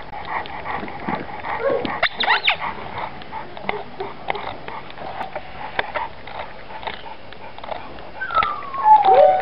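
Rottweiler panting, with a brief high whine about two seconds in and a longer falling whine near the end, the loudest sound.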